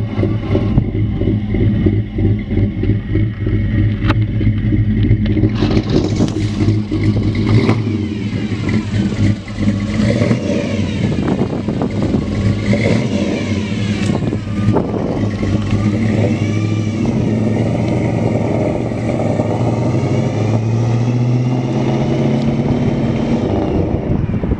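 Mildly cammed 350 V8 of a 1957 Chevrolet 210 running as the car drives by and away, its engine note rising and falling with the throttle.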